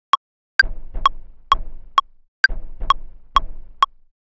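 Ableton Live's metronome ticking at 130 BPM, with a higher-pitched click on every fourth beat marking the bar. Over it, short drum-sample hits are played in by hand, each a low thump with a noisy tail, landing loosely off the grid.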